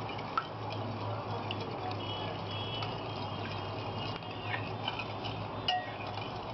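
Spoon stirring wet batter ingredients in a bowl, with a few faint clicks against the bowl over a steady low hum.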